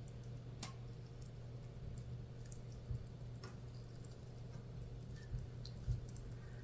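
Faint handling sounds of a flattened raw chicken breast layered with ham and cheese being rolled up by hand: a few soft squishes, light clicks and dull taps over a steady low hum.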